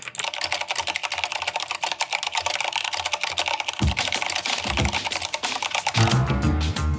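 Fast typing on a mechanical keyboard: a dense, rapid run of key clicks. Music with a bass line comes in about six seconds in.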